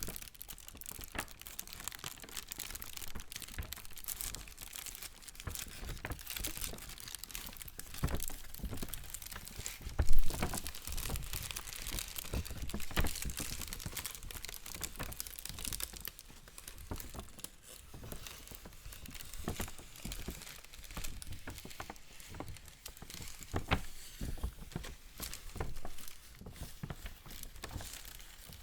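Paper being handled and crumpled, a continuous crinkling and rustling made of many small crackles, with one sharp, loud crack about ten seconds in.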